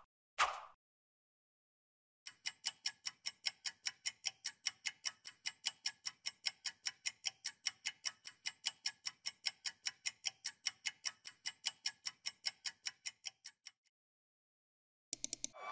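Clock-ticking sound effect for a quiz countdown timer, a steady run of sharp ticks at about four a second that starts about two seconds in and stops near the end. A brief whoosh is heard at the very start.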